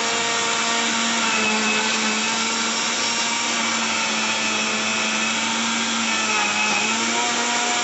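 Electric mixer grinder running steadily at full speed with a loud motor whine, grinding onion, tomato and garlic into a masala paste.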